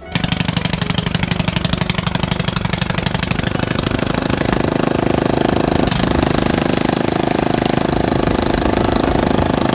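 Texas portable generator's engine running on a test run after its failed bearing was replaced. It runs loudly with fast, even firing pulses, and about three to four seconds in it picks up to a higher, steady speed.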